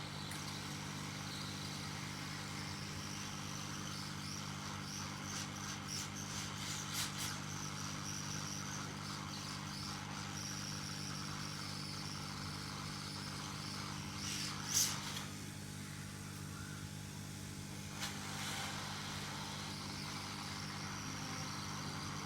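Hot air rework blower running steadily, an even hiss of air over a low hum, as it heats a phone processor chip to melt its solder. A few light clicks sound near the start and once past the middle, and the hiss thins briefly about two-thirds of the way through.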